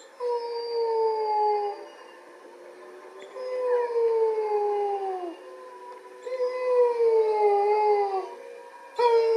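A wolf howls in protest as its mate is led away: three long howls, each sliding slowly down in pitch, with short pauses between, and a fourth starting near the end. Other wolves join in with fainter overlapping howls at different pitches.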